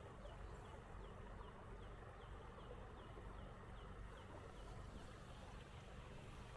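A songbird calling a steady series of short, down-slurred whistled notes, about three a second, that fade out about five seconds in.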